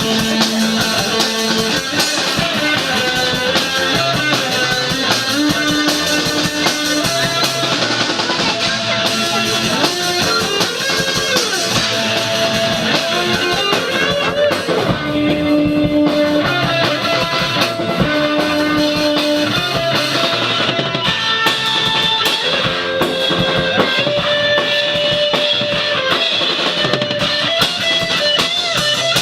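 Instrumental rock music: electric guitars, bass and a drum kit playing a sustained melodic passage with a steady beat.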